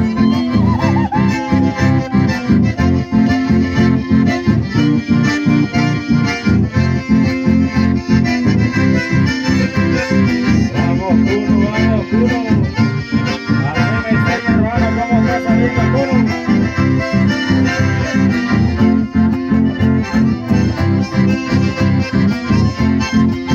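Live chamamé music: two button accordions play the melody over acoustic guitar accompaniment, with a steady rhythmic pulse.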